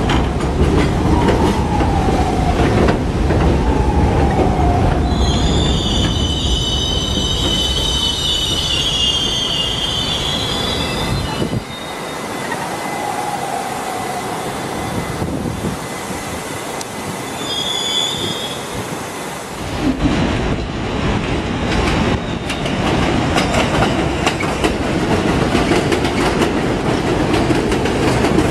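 New York City subway train on the Brighton Line: heavy rumble with motor tones falling in pitch, then a high wheel squeal lasting about five seconds. After a quieter stretch, the rumble and clatter of train wheels rise again about twenty seconds in.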